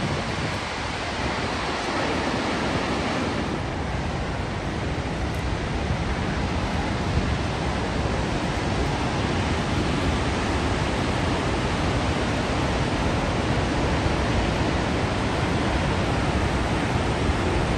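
El Puma waterfall rushing: a steady, unbroken wash of falling water.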